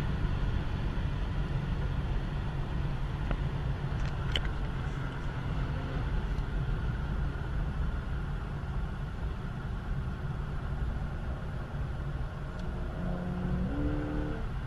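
Cabin noise inside a Porsche 911 Carrera at autobahn speed: steady rumble from the flat-six engine, tyres and wind, with a couple of short clicks about four seconds in.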